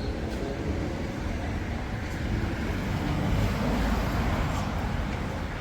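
Road traffic noise, swelling as a vehicle passes about three to four seconds in.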